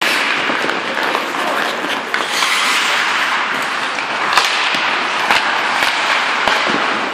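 Ice hockey in play: skates scraping the ice in a steady hiss, with several sharp clacks of sticks and puck, the loudest about four and a half seconds in.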